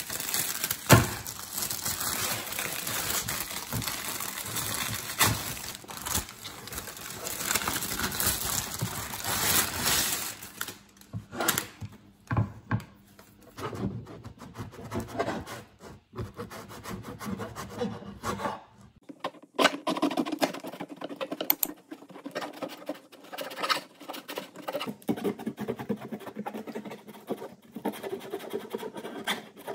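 A paper bread bag crinkling, then a knife sawing through a crusty loaf on a wooden chopping board in repeated rasping strokes from about two-thirds of the way in.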